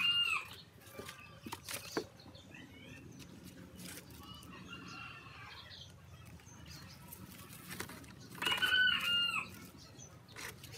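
Rooster crowing: the tail of one crow right at the start, a fainter crow about five seconds in, and a full, loud crow about eight and a half seconds in. A few light clicks and rustles fall between the crows.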